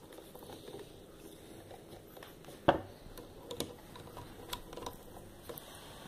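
Faint scattered clicks and ticks of a screwdriver and small metal parts on a refrigerator compressor's cylinder head as its screws are run down by hand and only lightly snugged. One sharper click comes a little under halfway through.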